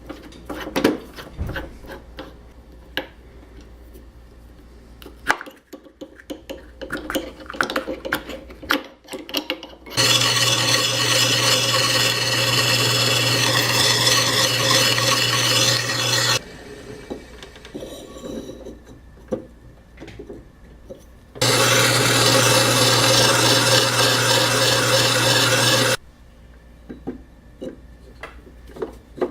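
Drill press motor running while drilling a hole in a pipe cap, in two steady runs of about six and four and a half seconds, each starting and stopping abruptly. Light clicks and knocks of handling come before the first run.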